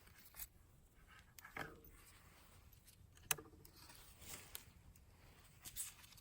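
Faint, scattered knocks and scraping, with one sharp knock about three seconds in.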